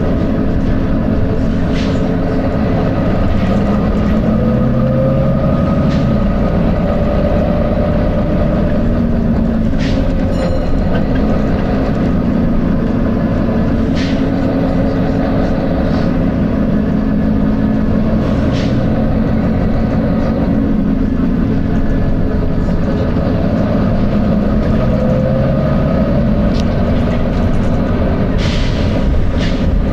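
Volvo B9TL double-decker bus running, a steady engine and driveline drone with rattling clicks and a pitch that rises twice as it pulls away. A short air hiss sounds near the end.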